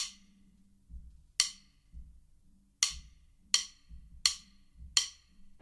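Sparse percussion intro: six sharp, wood-block-like clicks, the last four evenly about 0.7 s apart, over soft low beats about once a second.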